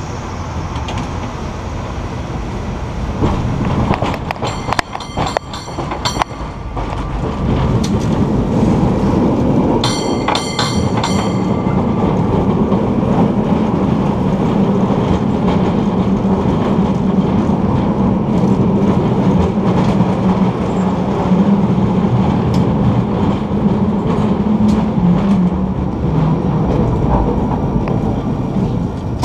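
San Francisco cable car running on its rails, with a steady rumble and clatter of the wheels and the cable running in the slot, settling into a low hum. Twice, about four seconds in and again near ten seconds, a bell rings in quick repeated strokes.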